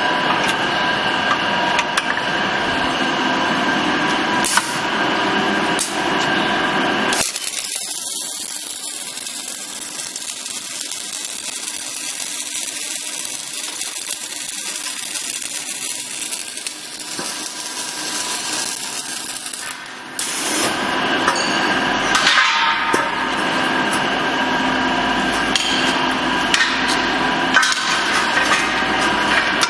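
Industrial machinery running with a steady hum and scattered metallic knocks and clicks. From about 7 to 20 seconds in, a high hiss takes over, then the machine hum returns.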